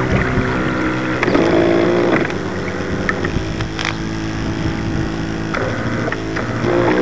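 Radio-controlled model boat's motor and drive heard from on board: a steady mechanical whir and hum that falters and picks up again a few times, with small clicks and rattles from the hull.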